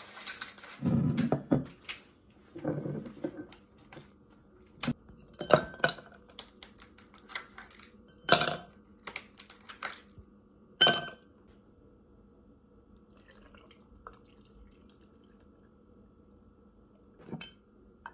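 Glassware and ice handled on a countertop: ice cubes clinking into heavy glass tumblers and glasses knocked against the counter. A string of separate clinks and knocks, most of them in the first eleven seconds, then one more near the end.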